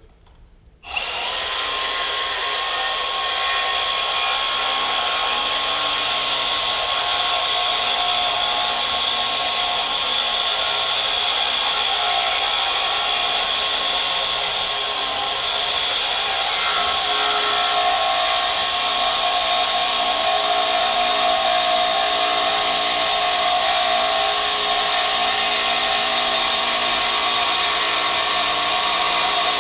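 Metal-cutting bandsaw with a new blade starting up about a second in and running steadily with a steady whine as it works against the steel of a tractor lift arm. The blade is barely cutting, which the owner takes for hardened steel.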